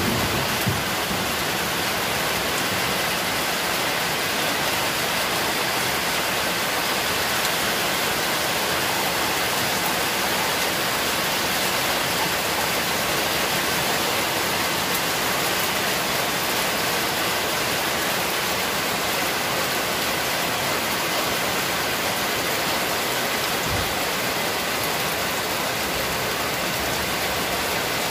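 Heavy rain falling steadily onto a concrete street, an even, unbroken hiss.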